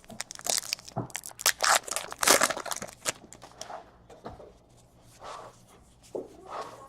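A trading-card pack wrapper torn open and crinkled by hand, a dense crackling rustle for about three seconds, followed by softer scattered rustles as the cards are handled.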